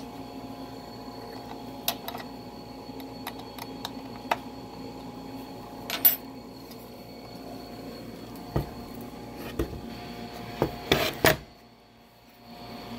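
Handling of a Kreg plunge saw: scattered clicks and knocks of its plastic and metal parts as it is adjusted and tipped over. There is a sharper knock about six seconds in and a cluster of knocks near the end. The saw motor is not running.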